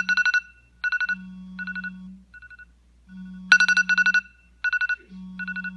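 Electronic phone alarm tone ringing: bursts of quick trilled high beeps alternating with a low held tone, the phrase repeating about every three and a half seconds.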